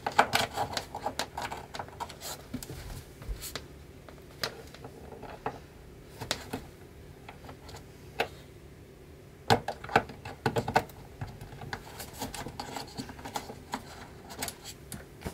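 Irregular plastic clicks, knocks and rubbing from hands working at the back panel of a Yamaha portable keyboard and plugging a cable into its rear socket. The clicks come in two busy clusters, at the start and again about ten seconds in, over a faint steady hum.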